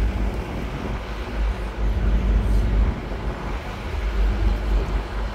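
Road and traffic noise from a moving open-top sightseeing bus: a steady mix of bus engine and passing traffic with a heavy, uneven low rumble.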